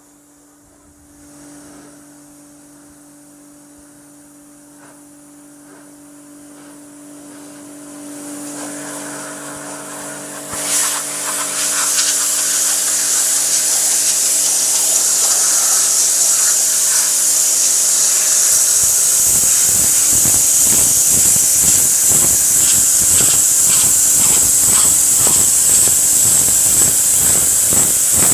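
Bosch AQT 45-14X electric pressure washer: at first a faint steady hum, then about ten seconds in a loud hiss of the high-pressure water jet blasting paving slabs takes over, with dense spattering of water from about eighteen seconds.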